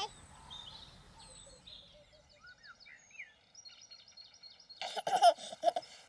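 Small birds chirping faintly in short gliding calls, then near the end a baby giggling in a few short bursts.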